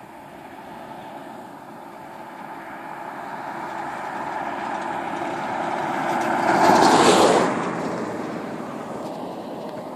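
Suzuki GSX-R 600 motorcycle's inline-four engine passing by: it grows steadily louder as it approaches, is loudest as it passes about seven seconds in, then fades away.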